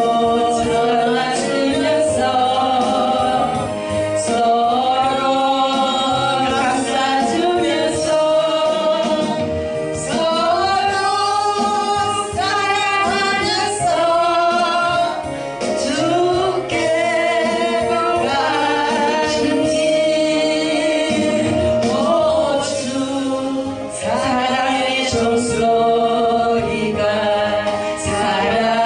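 Korean gospel praise song: voices singing a gliding melody over steady held accompaniment.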